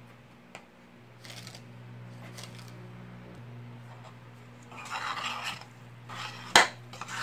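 Metal spoon scraping and mixing a thick, dry chicken and chana dal mixture in a stainless steel pot: a few faint scrapes at first, louder scraping about five seconds in, then a sharp clink of the spoon against the pot near the end. A steady low hum runs underneath.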